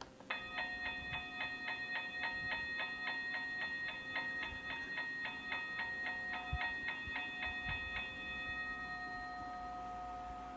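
Toy railroad crossing gate's warning bell dinging in an even rhythm of about three strokes a second as the gate arm lowers. About eight seconds in the strokes stop and a steady ringing tone carries on.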